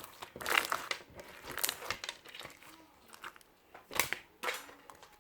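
Crinkling and rustling as something is handled, in about five short, irregular bursts, the loudest about half a second in and about four seconds in.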